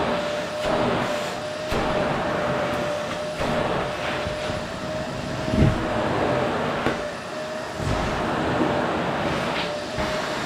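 Qilive vacuum cleaner running on a sofa: a steady rushing of air with a constant whine, and irregular knocks as the nozzle is pushed over the upholstery, the loudest a thump about halfway through.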